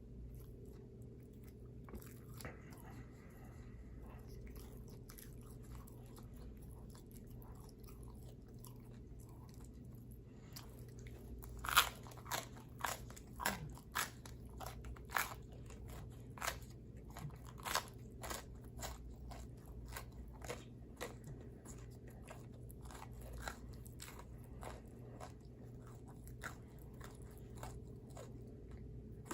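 A person biting and chewing pizza, the crust crunching close to the microphone. For the first ten seconds or so there are only faint mouth clicks over a steady low hum. Then comes a run of sharp crunches for about ten seconds, the first the loudest, thinning out near the end.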